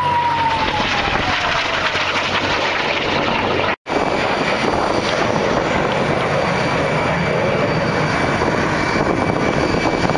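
Fighter jet engines running loud, with a whine that falls in pitch over the first two seconds as a jet passes low. The sound drops out briefly about four seconds in, then resumes as the steady roar of jets flying in formation.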